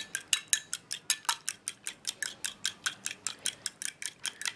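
A raw egg being beaten in a small glass bowl with a metal utensil, which clinks against the glass in a quick, even rhythm of about six strokes a second.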